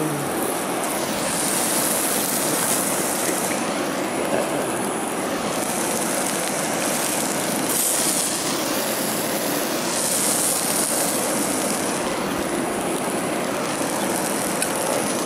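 Bacon rashers sizzling in hot fat in a frying pan on a portable gas stove: a steady, fairly loud hiss whose high end swells and fades every few seconds.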